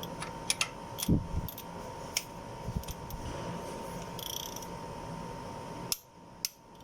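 Scattered light metallic clicks and ticks from a hand torque wrench and socket being handled and fitted onto the cylinder head bolts, before the tightening sequence begins.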